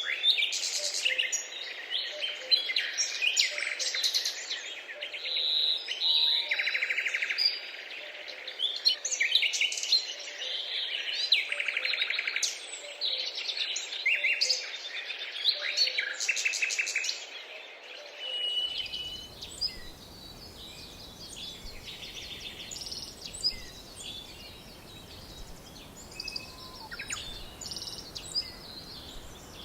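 A dense chorus of many songbirds singing and calling, overlapping chirps and trills. About two-thirds of the way through it changes suddenly to a few scattered bird calls over a steady, even hiss.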